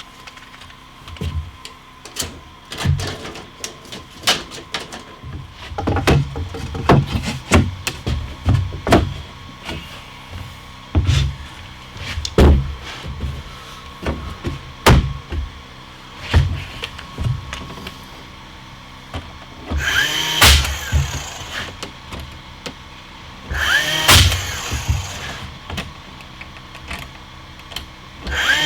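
Wooden boards knocked and set down in a string of sharp thuds, then three short bursts of a power tool motor, each about a second long.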